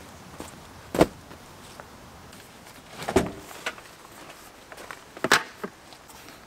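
Knocks and clunks of camping gear being handled and shifted in the back of a car: three sharp, loud ones, about a second in, about three seconds in and a little after five seconds, with a few lighter clicks between.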